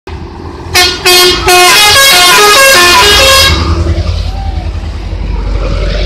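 Truck's telolet musical air horn: two short blasts, then a quick tune of stepped notes played over several trumpets at once for about two seconds, cutting off sharply. After it, the truck's engine runs on as it goes past.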